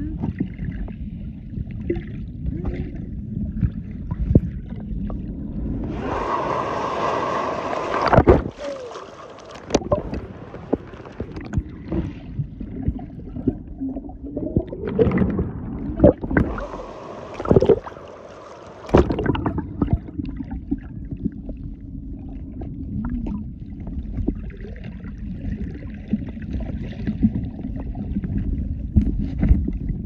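Muffled sloshing and gurgling of seawater around a camera at or under the sea surface, with a steady low rumble. Twice, near the middle, a louder rushing splash lasts a couple of seconds and cuts off suddenly.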